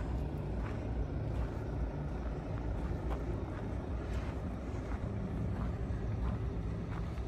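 Heavy truck diesel engine running with a steady low rumble, with a few faint clicks scattered through it.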